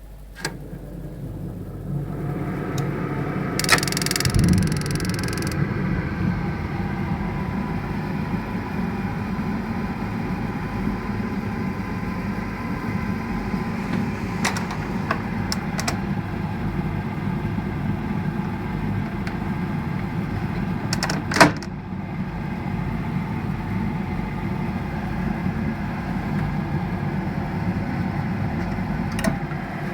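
BAXI Main 5 14F gas boiler running: a click, then a steady running noise from about two seconds in, with a few sharp knocks from the gas valve, the loudest about two-thirds of the way through.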